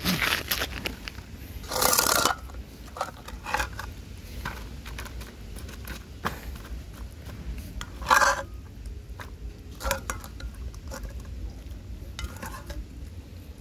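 Plastic ladle scraping and knocking against a metal cooking pot and a bowl as food is dished out. There are scattered short clicks and two louder bursts, about two seconds in and about eight seconds in.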